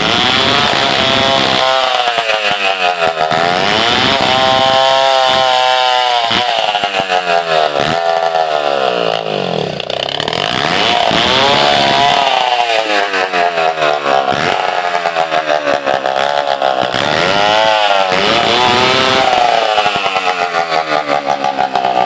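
Stihl 070 two-stroke chainsaw ripping a log lengthwise into planks, its engine pitch rising and falling over and over as the bar is worked along the cut.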